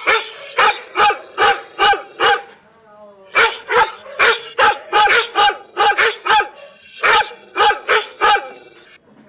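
A dog barking in quick runs of short, pitched barks, about two to three a second, with brief pauses between the runs.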